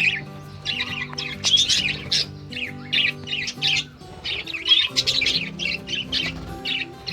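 Budgerigars chattering, a rapid run of overlapping chirps and squawks that comes in bursts, over background music with steady held notes.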